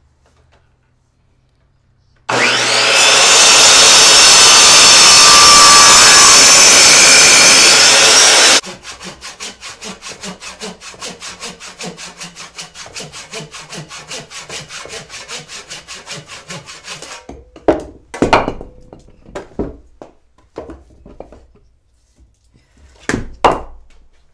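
A sliding compound miter saw cuts through a log for about six seconds, loud and steady. Then a handsaw rips lengthwise down a small log in quick even strokes, about four a second, for some eight seconds. A few separate knocks follow near the end.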